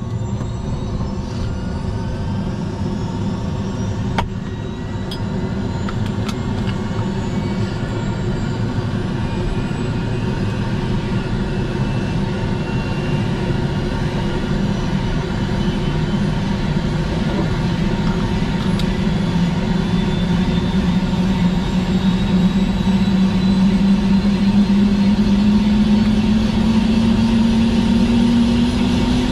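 Airbus H125 (Esquilo AS350 B3e) helicopter's Arriel turbine engine and rotor running up during start-up. A steady turbine whine with several held tones, and a low hum that slowly rises in pitch and grows louder over the second half.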